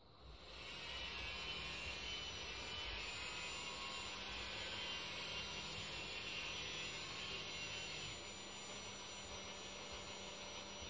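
Small electric motor of a toy tower crane running with a steady whir, building up over the first second and cutting off suddenly near the end.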